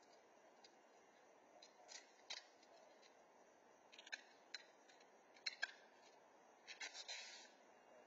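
Faint sharp clicks and clacks from someone handling items in a curbside trash pile, coming in small clusters about two, four, five and a half and seven seconds in. The clatter is densest near seven seconds. Underneath is the steady hiss of a security camera's microphone.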